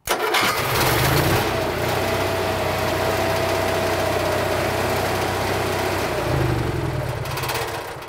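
Cummins Onan Emerald Plus 4000-watt RV generator starting at once as its remote-start wire is connected. It comes up to speed with a heavy low rumble, then runs steadily with a high whine over the engine note. Near the end it swells again and starts winding down as it is switched off.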